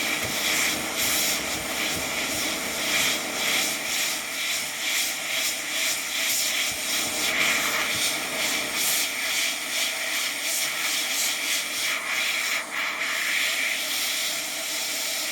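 ATTEN ST-862D hot air rework gun blowing a steady hiss of hot air from its brushless fan onto a switch's solder joints to desolder it.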